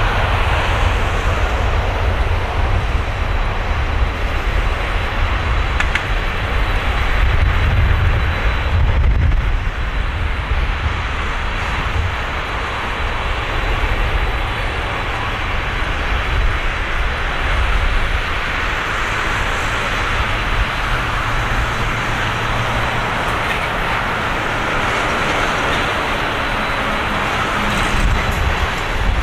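Airbus A330-200's two Rolls-Royce Trent 700 turbofans at takeoff thrust: steady, loud jet noise with a deep rumble as the airliner rolls down the runway and climbs away.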